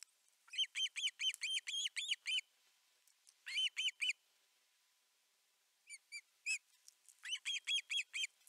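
Osprey calling at the nest: rapid series of short, high, whistled chirps, in four bursts of roughly three to nine notes each, with short pauses between.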